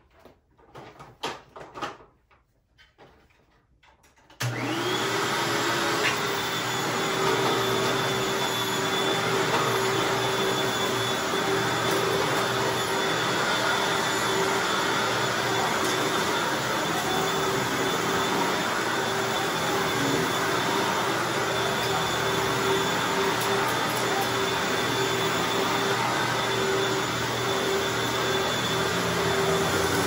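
Hoover Anniversary bagged upright vacuum cleaner, newly serviced with a nearly empty bag, switched on about four seconds in. Its motor spins up quickly, then runs steadily with a constant whine as it is pushed over a rug. Before it starts there are a few light knocks.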